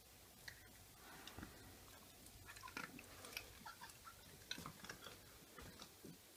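Whippet puppy chewing a small treat: faint, irregular crunching clicks, busiest in the middle.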